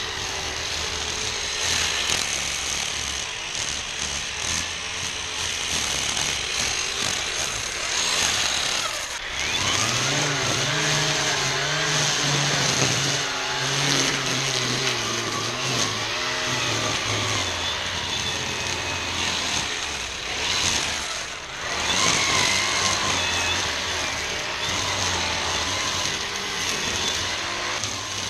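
ECHO 58-volt battery string trimmer running and cutting tall weeds and grass, with a steady high whine and a hiss of line through the growth. Its pitch dips and recovers as it works through the thick growth, most clearly through the middle stretch.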